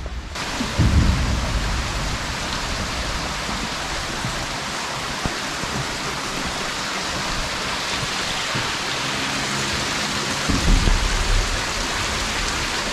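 Steady rushing of water from a mountain stream tumbling over boulders, an even hiss. Brief low rumbles come about a second in and again near the end.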